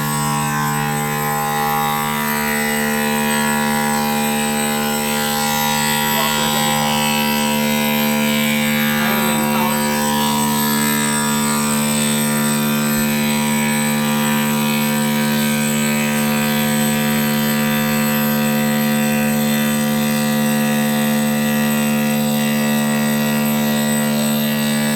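CNC machine running with a loud, steady hum of several fixed pitches that does not change.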